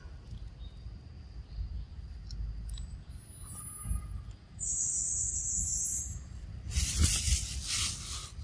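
Outdoor ambience with a low rumble of wind on the microphone, a steady high buzz lasting about a second and a half midway, and a louder hiss about a second long near the end.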